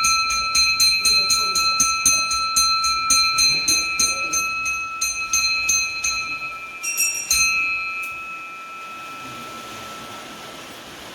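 Brass puja hand bell (ghanti) rung rapidly, about four strikes a second, for about six seconds. A few last strikes follow, then it rings out and fades.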